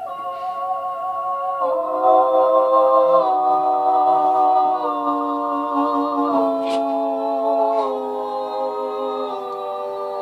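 An elevator's sound system playing sustained, choir-like chords of several held tones. The chord steps to a new pitch about every one and a half seconds.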